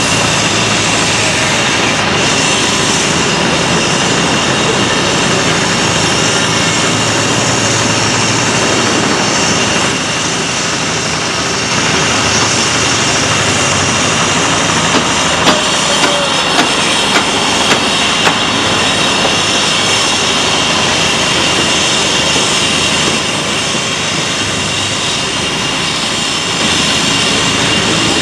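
Steady din of construction machinery: the diesel engines of a Cat 308E mini excavator and a site dumper running as they dig and load sand, with a steady high whine over the noise. About halfway through comes a quick run of five sharp knocks.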